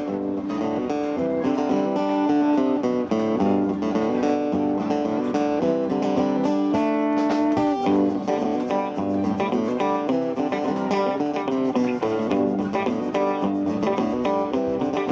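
Live rock band playing a guitar-led instrumental passage: strummed acoustic guitar and electric guitar over drums, with no singing yet.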